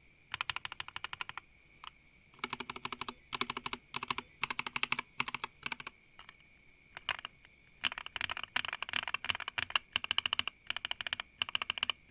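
Typing on a mechanical keyboard with yellow switches, in quick runs of keystrokes broken by short pauses. A faint steady high whine runs underneath.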